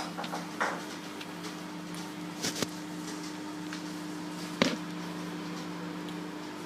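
Microwave oven running mid-cycle with a steady low hum, with a few short knocks, the loudest about two thirds of the way through.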